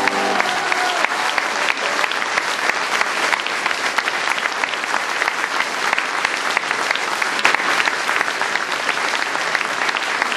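Audience applause, dense and steady, rising as the final held note of the music dies away in the first moment.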